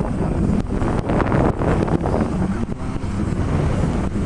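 Wind buffeting the microphone in a loud, gusty rumble, over the rush of water along the hull of a sailboat heeled under sail.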